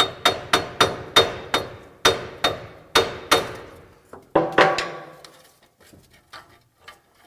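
Hammer blows on a Nissan front hub bearing assembly, driving it out of the steering knuckle: a quick series of about a dozen ringing metal strikes, roughly three a second, then two more a little after the middle. The bearing is not badly seized and is coming out with tapping alone.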